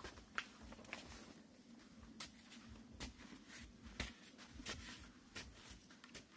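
A long-handled digging tool chopping into the earth at the base of bamboo, some eight faint sharp strikes at uneven intervals, as bamboo shoots are dug out.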